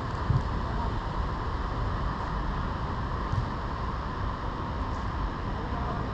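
Steady wind rumble on the camera microphone over outdoor background noise, with a couple of faint thumps, one right at the start and one about halfway through.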